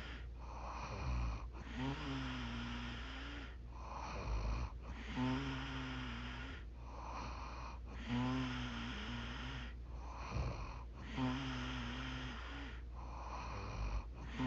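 A woman snoring in her sleep, about five snores at a steady pace of one every three seconds. Each snore carries a steady buzzing tone, followed by a softer breath.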